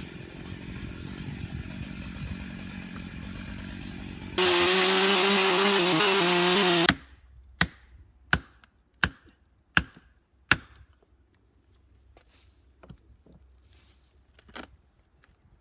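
Stihl chainsaw running, then revved to full throttle about four seconds in and cut off abruptly a few seconds later. Then five sharp knocks come about 0.7 s apart, followed by a couple of fainter ones.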